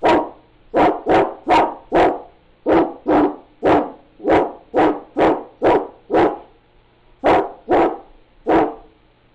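A woman imitating a German Shepherd's barking with her voice: about sixteen short, loud barks at roughly two a second, with a brief pause a little after six seconds.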